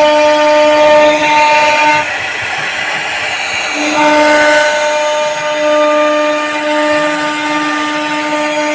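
CNC router spindle running with a steady whine made of several pitched tones while carving HDHMR board. About two seconds in, the whine drops out for roughly two seconds, leaving a rougher noise, then comes back.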